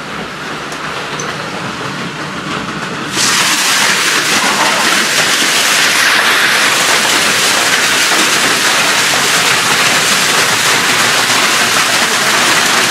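Heavy rain mixed with hail pouring down in a steady hiss, muffled at first, then suddenly much louder about three seconds in as a door opens onto the storm.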